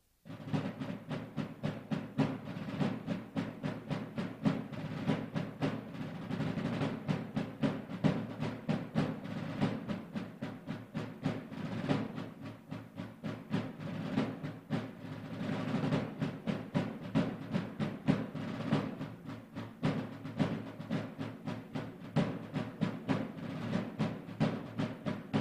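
Two rope-tension rudimental field drums played together in unison, starting just after the opening: a fast, dense run of stick strokes broken by rolls, in an ancient rudimental drum piece played in its original form.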